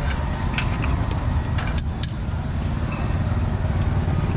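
A motor vehicle engine running as a steady low rumble, with two sharp clicks about two seconds in.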